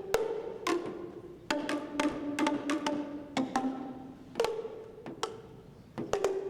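Pitched percussion struck note by note in an uneven rhythm. Each strike rings briefly at a clear pitch, and the notes change from strike to strike, as in a simple tune on tone bars or bells.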